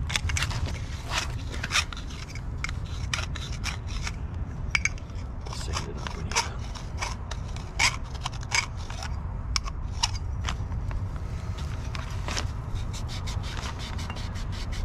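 Handheld tube cutter being worked around copper water pipe: an irregular run of short, sharp metallic clicks and scrapes, over a steady low rumble.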